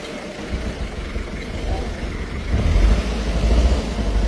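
Jeep engines running slowly on a rough gravel mountain track, a low rumble that grows louder about two and a half seconds in.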